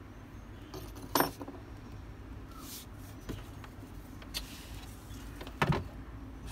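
Handling noise on a wooden tabletop: a few short knocks and light clatter as small tools are put down and a multimeter with its test leads is set beside the battery. The two loudest knocks come about a second in and near the end.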